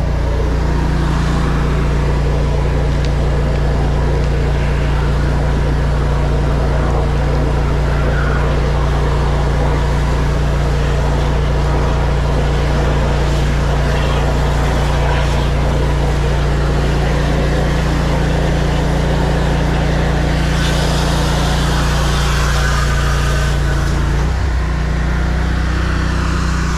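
A high-pressure drain jetter's engine-driven pump runs steadily at a constant pitch. A hiss of water spraying from the jet hose rises over it for a few seconds late on.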